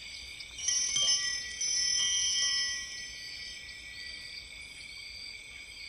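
High metal chimes ringing, with two fresh strikes about a second apart near the start. The overlapping tones then ring on and slowly fade.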